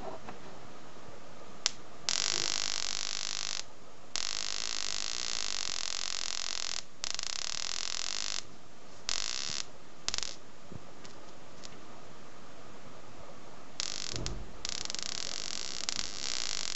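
High-voltage sparking from a homemade cascade generator, arcing across a small gap between a banana-plug tip and a neon glow lamp's lead. It is a hissing buzz that cuts in and out in bursts of up to about three seconds, with a sharp click just before the first burst.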